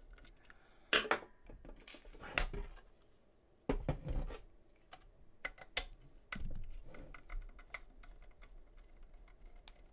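Scattered light clicks, taps and knocks as a Phillips screwdriver and hands work on the metal housing of a ShotLock shotgun wall safe, backing out its cover screws. The loudest knocks come about a second in, near two and a half seconds and near four seconds.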